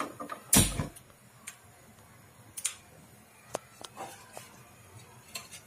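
Gas stove burner being lit: one loud, short puff with a low rumble about half a second in, then a scattering of faint light clicks.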